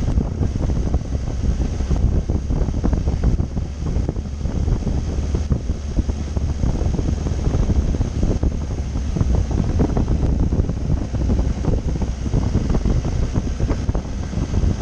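Wind buffeting the microphone on a moving motorcycle, a Triumph Tiger 800, with a steady low rumble of the ride underneath.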